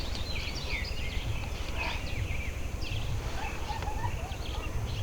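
Wild birds chirping: many short, quick chirps and falling notes from several birds, over a steady low rumble.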